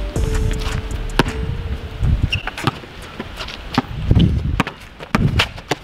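Basketball bouncing on an outdoor asphalt court, dribbled in an irregular run of sharp knocks, with players' footsteps and sneaker scuffs between.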